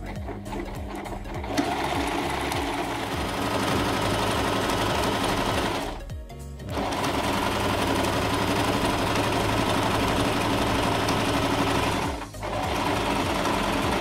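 Singer electric sewing machine stitching a seam through cloth in steady runs, stopping briefly about six seconds in and again near the end.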